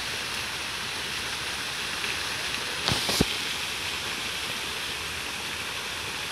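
Steady rush of running water, with two brief knocks about three seconds in.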